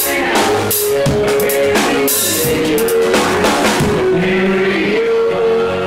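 A live band playing country-rock, led by an acoustic drum kit with kick drum and cymbals, under held chord notes. The drum hits thin out about four seconds in, leaving the held notes and a cymbal wash.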